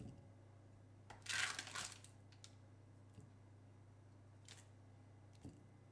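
Fork moving roasted butternut pumpkin slices from a parchment-lined baking tray into a glass bowl: a short scraping rustle about a second in, then a few faint clicks, over a faint low hum.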